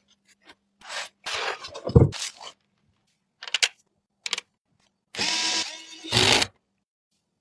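Computer parts being handled and fitted: a series of short clicks and knocks with a heavier thud about two seconds in. A small electric screwdriver runs in a short steady whir about five seconds in, followed by another thud.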